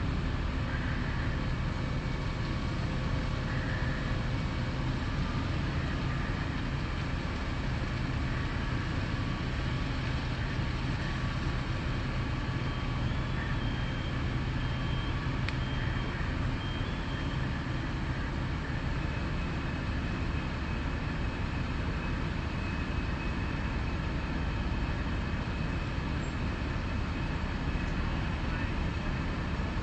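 Fire truck engine running steadily, a constant low hum and rumble.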